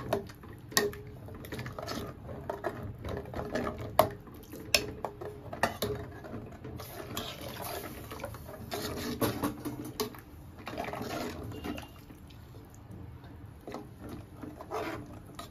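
A steel ladle stirring milk with sago pearls in an aluminium pot: the liquid sloshes, and the ladle clinks and scrapes against the pot many times at irregular moments.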